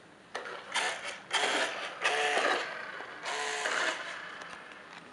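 Radio-controlled toy BMW i8 Concept car's small electric motor and plastic gearbox whirring in four short bursts as it drives off.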